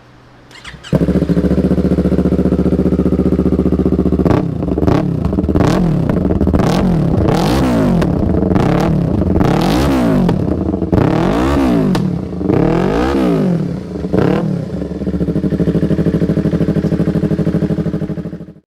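Yamaha YZF-R3's 321 cc parallel-twin engine breathing through an Akrapovic Racing Line stainless full exhaust system. It starts about a second in and idles, is blipped repeatedly with sharp rises and falls in pitch, settles back to idle, then cuts off just before the end.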